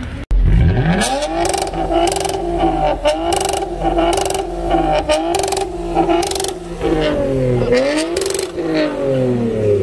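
Toyota Camry with the muffler and both resonators deleted, revved hard and held at high rpm with the revs bobbing. Near the end the revs drop and climb again twice. Short, sharp cracks cut through the exhaust note at irregular intervals.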